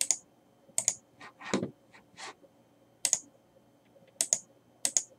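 Irregular sharp clicks of keys being pressed, some in quick pairs, one with a duller thud, as the camera's focus is adjusted.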